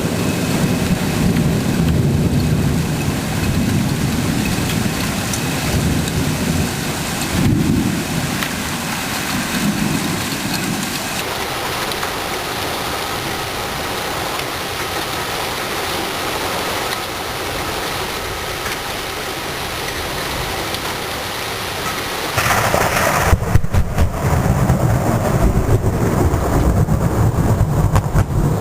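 Steady rain with rolling thunder. A low rumble runs through the first ten seconds or so, then mostly the hiss of rain, and a sharp crack with a louder rumble comes about 22 seconds in.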